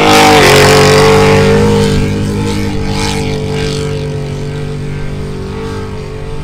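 Off-road vehicle engine held at a high, nearly steady pitch just after a rev, slowly getting quieter.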